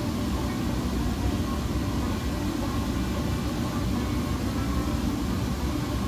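A steady low mechanical rumble.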